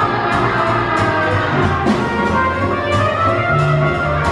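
Live band music: a trumpet playing the lead over a drum kit keeping a steady beat with cymbal strikes, with upright bass and saxophone.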